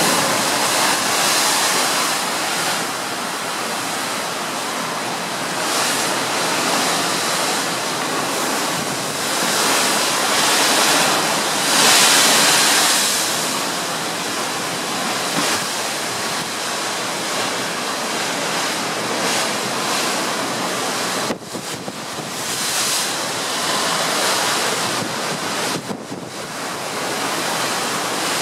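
Wind buffeting the microphone over the rush of the open sea breaking along a moving ship's side, swelling and easing in gusts, loudest about twelve seconds in.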